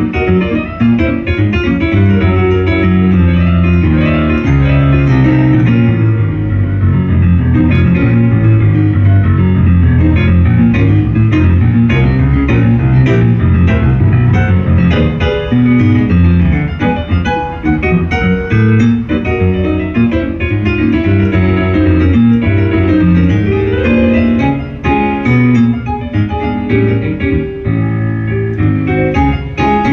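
Solo piano playing ragtime: a steady oom-pah bass under syncopated right-hand melody.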